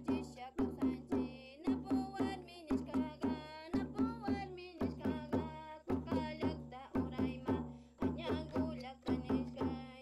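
Music with a quick, steady beat of pitched hand-drum strokes and a wavering melodic line above it.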